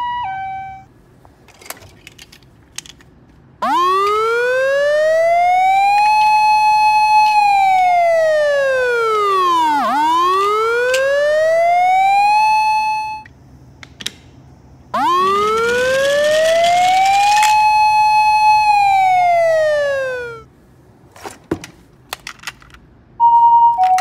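Toy ambulance sirens. A two-tone hi-lo siren ends in the first second. Then a wailing siren rises, holds high, falls, rises again and cuts off; after a short break it rises, holds and falls once more. Small clicks come in the gaps, and a two-tone hi-lo siren starts again near the end.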